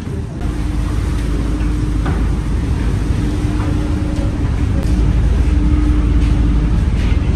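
Boat engine running with a steady low rumble and hum, growing louder about half a second in and again around five seconds in.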